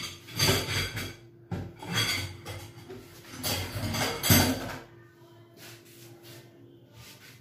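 Kitchen dishes and utensils clattering and clinking in several short bursts, which stop a little after halfway.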